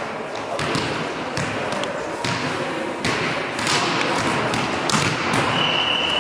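Scattered thuds of volleyballs bouncing on a wooden gym floor in a large sports hall, over a background of voices. A brief high tone sounds near the end.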